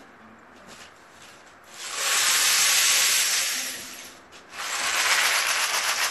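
Rain stick tipped to make its steady rushing patter of beads falling through the tube, starting about two seconds in, breaking off briefly near the fourth second as it is turned over, then running again.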